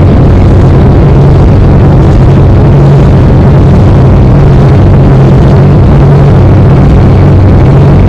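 Loud, steady engine drone and rushing noise of a moving vehicle, a low hum under a wide hiss, starting abruptly at the outset.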